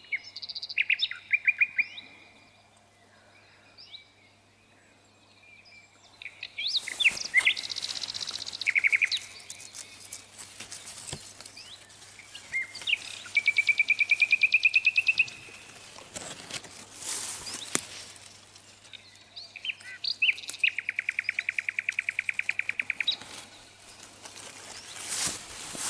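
Small songbirds singing, with several fast, even trills of two to three seconds each. Leaves rustle and brush close by now and then as the currant bushes are handled.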